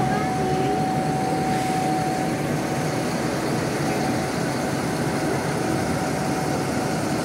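Large diesel bus engine idling steadily, with a thin high whine that fades out about two and a half seconds in.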